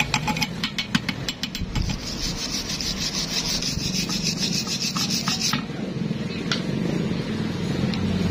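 Chipping hammer tapping slag off a fresh fillet weld on rusty steel plate, about five quick taps a second, for the first second and a half or so. Then a steel wire brush scrubs the weld bead in rapid scratchy strokes until about five and a half seconds in.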